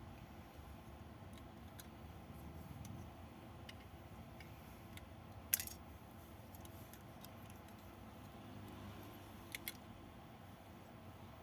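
Sharp plastic clicks from a Lego brick gun being handled: scattered faint clicks, one loud click about halfway through and a quick double click near the end, over low background noise.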